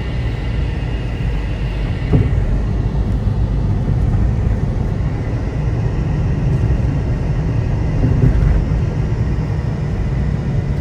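Steady low road and tyre rumble heard inside the cabin of a 2014 Jeep Compass driving over a bumpy street, testing its newly replaced struts, with a brief bump about two seconds in.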